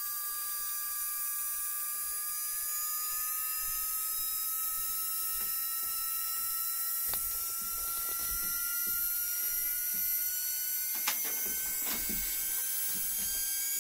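SH20N and SH37L nail-drill micromotor handpieces running in after a bearing replacement: a steady high whine whose pitch slowly rises as the supply voltage is turned up, with a couple of faint clicks near the end.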